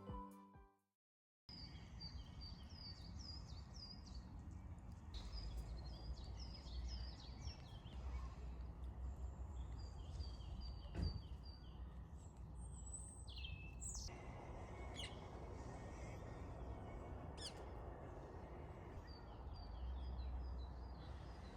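Small birds chirping in short repeated runs over a faint, steady low rumble of background noise, with a single sharp click about halfway through. A moment of background music fades out at the very start.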